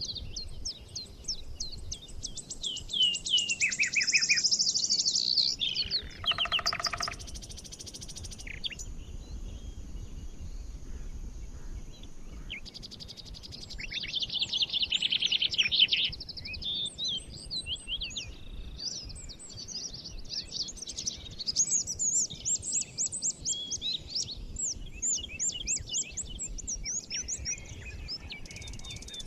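Mixed daytime forest birdsong from several small birds: overlapping rapid, high trills and chirps, busiest a few seconds in and again about halfway through. It is a generated forest ambience rather than a field recording.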